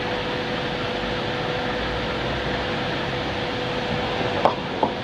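Stone CNC router running while cutting marble: a steady whirring noise with one steady tone through it. A few sharp knocks come near the end.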